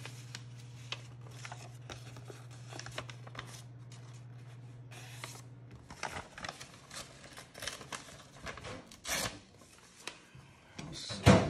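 Paper-backed vinyl wrap sheet rustling and crinkling as it is handled, with scattered small ticks and rubs; a low hum stops about halfway, and a loud knock comes near the end.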